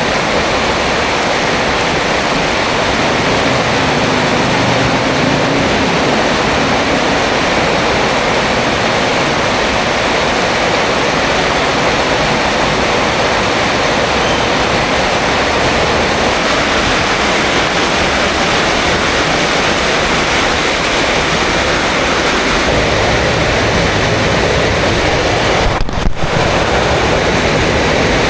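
Heavy rain falling, a loud, steady hiss, with a brief dropout and click near the end.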